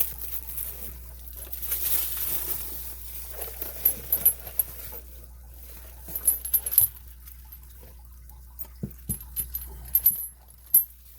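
Hardened-steel chain links and padlock of a Kryptonite chain lock clinking and rattling as they are handled, in several clusters of sharp metallic clinks.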